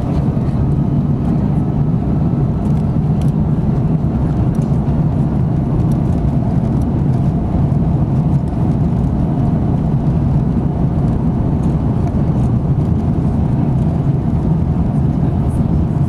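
Steady low engine rumble heard from inside a vehicle's cabin, holding an even level throughout.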